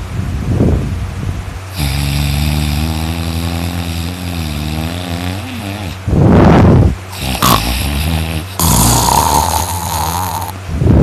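A person snoring loudly in sleep: rough, noisy inhales about every five seconds, with a long droning, pitched exhale after the first one.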